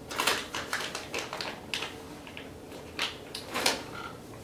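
Items and packaging being handled and rummaged through in a cardboard shipping box: a run of short, irregular rustles, taps and scrapes, the loudest about three and a half seconds in.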